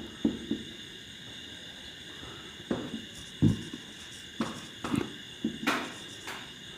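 Marker pen writing on a whiteboard: a run of short, irregular strokes and taps as a word is written out.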